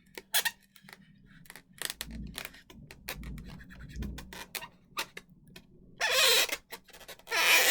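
Marker pen drawing on an inflated latex balloon: a run of short scratchy strokes and small clicks, then two longer, louder scratchy strokes near the end.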